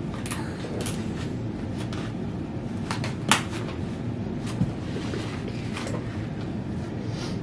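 Scattered clicks and knocks of e-bike parts being handled during assembly, the sharpest about three seconds in, over a steady low rumble.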